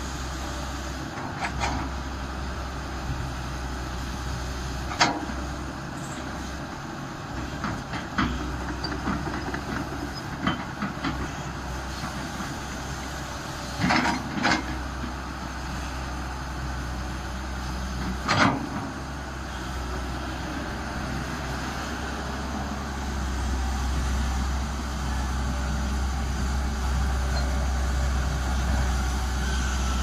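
Tata Hitachi hydraulic excavator digging, its diesel engine running steadily with sharp metallic knocks now and then: a close pair about 14 seconds in and another about 18 seconds in are the loudest. The engine grows louder in the last several seconds.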